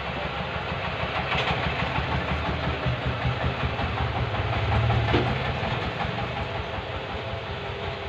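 A steady low mechanical hum, swelling slightly about five seconds in, with a couple of faint clicks.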